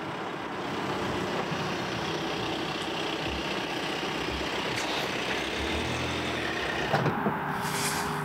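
Volkswagen Passat estate car driving up, its engine and tyres making a steady rush, with a few sharp clicks near the end.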